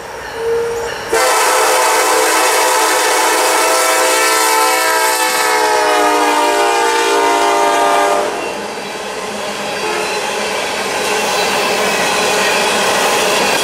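A diesel locomotive's multi-note air horn sounding one long blast for a crossing. It starts about a second in, drops in pitch as the lead BNSF SD70ACe passes, and cuts off about eight seconds in. After it, empty coal hopper cars roll by with a steady wheel-on-rail clatter.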